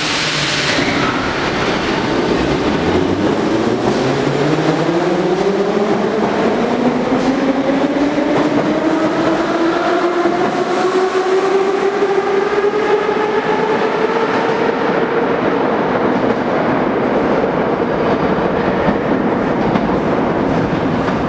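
Moscow Metro 81-717/714 train pulling away from the platform, with a brief hiss at the start. Its traction motors' whine rises steadily in pitch for about fifteen seconds and then holds, over wheel-and-rail rumble and clickety-clack, as the train accelerates into the tunnel.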